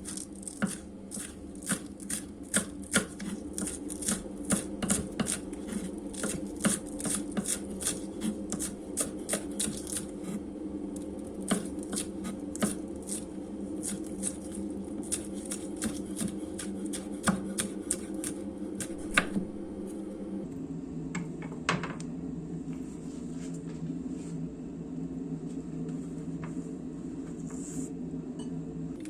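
Knife chopping on a cutting board, a few strikes a second over a steady low hum, stopping about two-thirds of the way through apart from a few last knocks.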